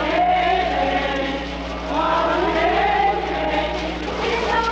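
A crowd of voices singing together, the melody wavering up and down, over a steady low electrical hum.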